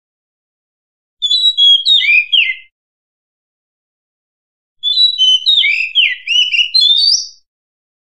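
Oriental magpie-robin (murai), a female according to the uploader, singing two short phrases of clear, varied whistled notes. The first comes about a second in and the second, longer one about five seconds in, with silence between.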